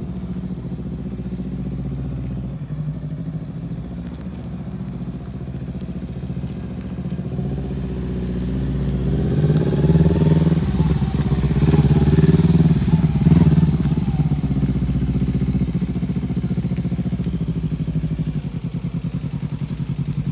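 Motorcycle engine running steadily as a learner rides it slowly in first gear on a little throttle. Around the middle it gets louder for a few seconds, its pitch rising and falling, then it eases back to a steady run.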